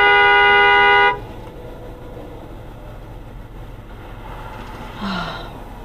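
A car horn held in one long steady honk, cutting off sharply about a second in. After it only low road noise, apart from a brief, fainter sound with a falling pitch near the end.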